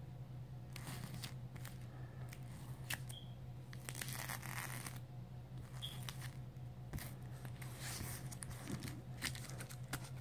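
Trading cards in rigid plastic top loaders being handled: scattered light clicks and brief rustles as the plastic holders knock and slide against each other and over a cloth surface, with a steady low hum beneath.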